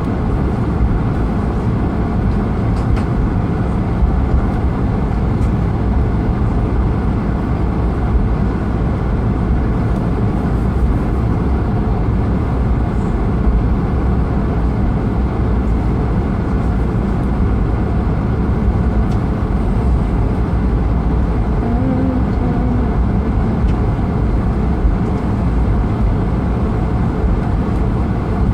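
Steady, loud cabin noise inside an Airbus A220-300: the rumble and rush of its Pratt & Whitney PW1500G geared turbofans and the airflow, running evenly without a clear rise or fall.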